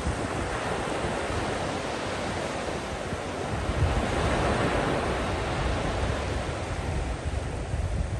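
Small ocean waves breaking and washing up over wet sand, a steady surf hiss that swells a little about halfway through. Wind buffets the microphone with a gusty low rumble.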